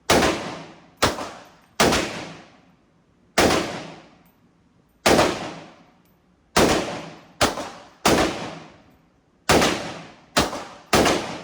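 Gunshots, about eleven at an uneven pace, some close together, each sharp crack trailing off in a long echo.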